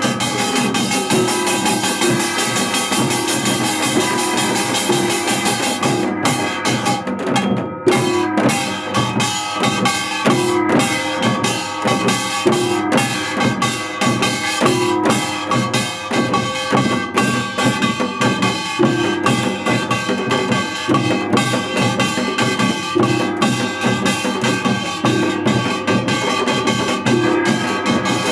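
Music with a drum kit keeping a steady beat, bass drum and snare, over pitched instruments; the drums drop out briefly about six seconds in, then return.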